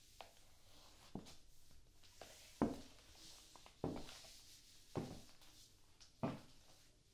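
High-heeled shoes stepping on a wooden floor: a few light taps, then four louder heel strikes a little over a second apart.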